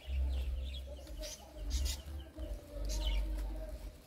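Several birds chirping with short high calls scattered throughout, over low rumbling gusts of wind on the microphone.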